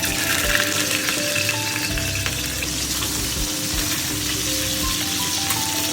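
Hot oil sizzling and frying in a stainless steel pan over high heat, a dense steady hiss. Soft background music with a simple melody plays underneath.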